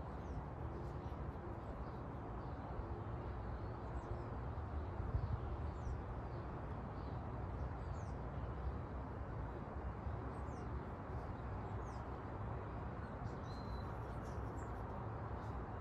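Small birds chirping on and off, short high chirps scattered throughout with a brief whistle near the end, over a steady low background rumble.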